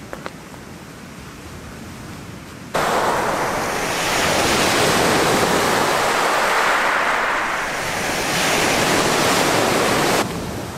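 Lake Superior surf washing onto the shore: a loud, steady rush of breaking waves that swells and eases, starting abruptly a little under three seconds in and cutting off suddenly near the end.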